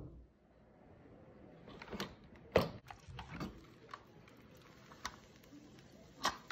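Irregular clicks and knocks of a Cosori electric pressure cooker's lid being handled and lifted off its stainless steel inner pot, the loudest about two and a half seconds in.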